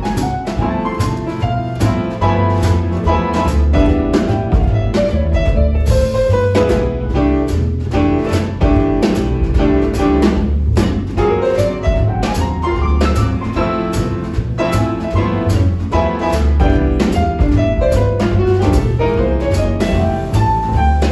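Full jazz big band playing a swing tune: saxophones, trombones and trumpets carry the melody over piano, electric guitar, upright bass and drum kit.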